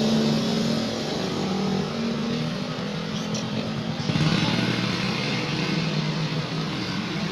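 An engine running steadily under a broad rushing noise, with a low hum that shifts and gets a little louder about four seconds in.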